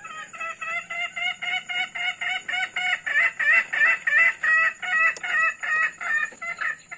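A fowl clucking in a rapid, even run of short calls, about four or five a second, loudest in the middle, with a steady high-pitched whine underneath.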